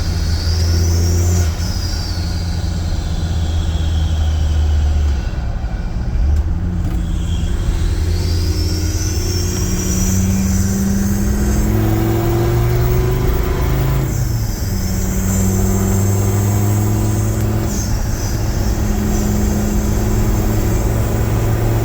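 Land Rover Defender 90 TD5's tuned five-cylinder turbodiesel, breathing through a cone air filter, revving up and dropping back several times, with the turbo whistling high above the engine, its whistle sweeping down and back up with each change of revs.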